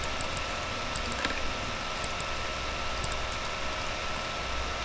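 Steady hiss and low hum of background noise, with faint, sharp clicks of a computer mouse, mostly in quick pairs, about once a second.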